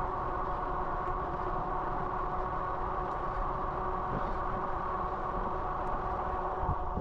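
Magicycle 52V fat-tire electric bike in motion: a steady hum holding several even tones over a low rumble.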